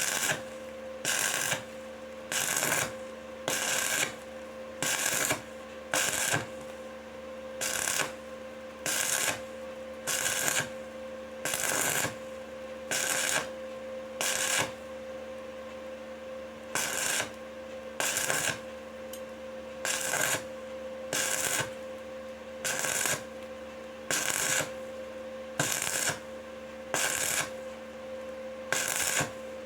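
Stick (MMA) welding arc crackling in short bursts about once a second, the arc struck and broken in a steady rhythm as the electrode is worked along the pipe seam. A steady hum runs underneath.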